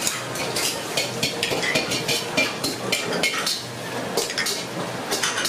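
Restaurant kitchen clatter: ramen bowls and soup spoons clinking and knocking in quick, irregular strikes as bowls are set up, over a low steady hum.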